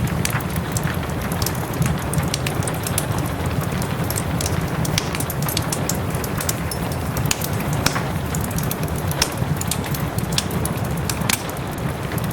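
Wood fire crackling with frequent sharp, irregular pops over a steady low rush of rain.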